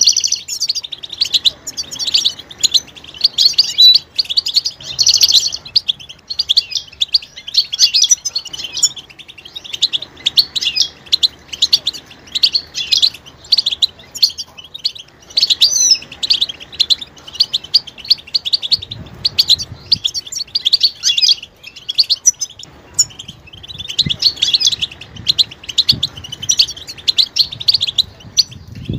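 European goldfinches twittering: a continuous run of quick, high chirps and trills, broken by a few short pauses.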